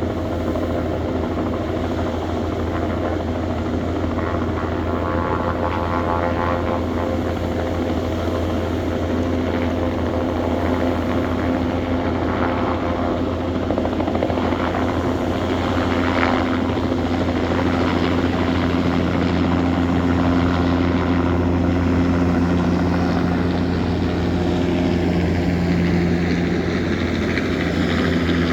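Helicopter running steadily, a strong low rotor beat under the engine's steady tones, with a further tone joining a little past the middle.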